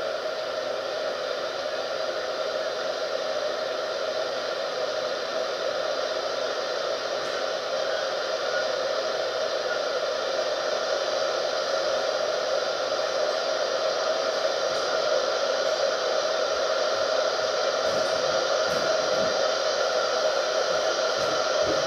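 Steady whooshing, fan-like noise that grows slowly louder, with a few faint low knocks near the end.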